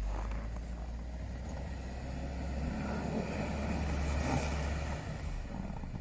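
Toyota Hilux Surf SUV engine held at high revs while its wheels spin in deep snow without grip, the SUV stuck. The driver blames poor tyres. The revs ease off about five seconds in.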